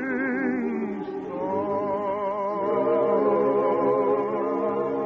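Operetta singing from an old radio broadcast recording: a singer holds the song's last word with wide vibrato over choir and orchestra, the held chord changing about a second in and swelling louder partway through.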